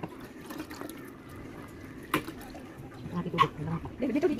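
A cooking spoon knocking and scraping against a pot while glass noodles are stirred in broth: a few sharp clinks, the loudest about two seconds in.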